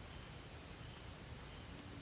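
Quiet forest night ambience: a steady hiss with faint, short high chirps repeating a few times.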